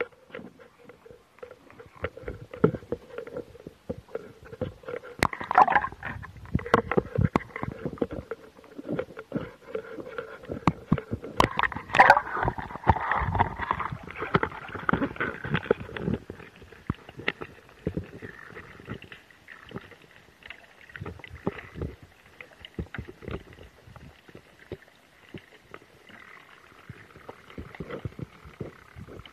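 Sea water sloshing and gurgling around a camera at and below the waterline beside a kayak, with irregular clicks and knocks. It is busiest in the first half and goes quieter and more muffled after about sixteen seconds.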